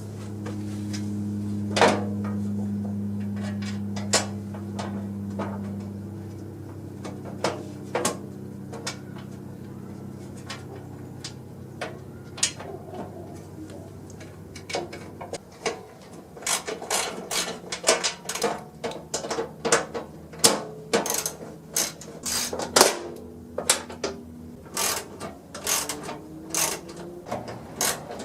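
Sharp, irregular metal clicks and clanks of tools and parts being handled, coming a few per second in the second half. Under them is a steady low hum that fades out about halfway through.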